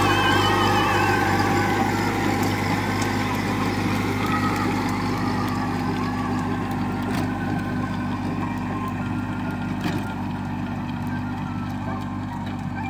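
Kubota compact tractor's diesel engine running steadily under the load of a rear rotary tiller churning soil, slowly fading as the tractor moves away.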